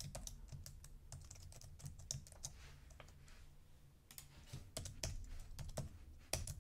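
Computer keyboard keys clicking in irregular spurts of typing.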